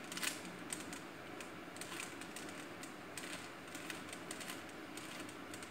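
A stickered 3x3 Rubik's cube being twisted by hand: quiet, irregular plastic clicks as its layers are turned.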